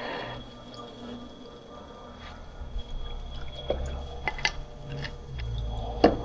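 Sharp metal clicks and clinks as a bowl gouge is handled and fitted into its sharpening jig, several in the second half and the loudest a single click near the end, over a low steady hum.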